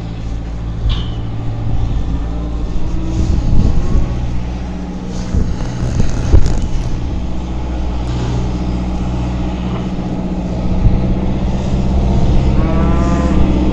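Diesel farm tractor with a front loader running and driving closer, its engine a steady low hum that grows louder over the last few seconds. A couple of short knocks sound about three and a half and six seconds in.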